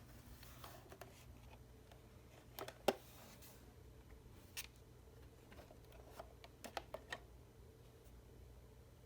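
Faint scattered clicks and light knocks of a small hard object being handled. The loudest comes about three seconds in, and a quick run of clicks follows about seven seconds in.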